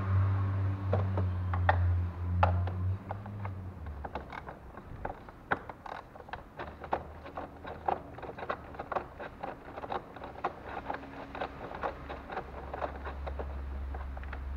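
Screwdriver undoing the bolts on a car's plastic air filter housing: many small irregular clicks and scrapes of the tool against the fasteners and plastic. A steady low hum runs under the first four seconds and then stops.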